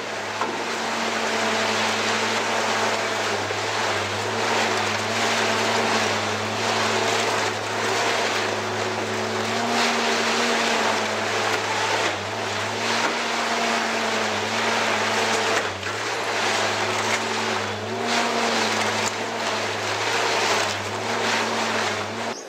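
Twin-shaft shredder tearing up a scrapped car body: a steady drive drone whose pitch wavers and dips now and then as it loads, over continuous crunching and tearing of sheet metal.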